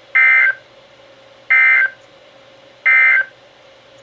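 NOAA Weather Radio EAS/SAME end-of-message data burst: three identical short, shrill digital warbles about a second and a third apart, marking the end of the special marine warning.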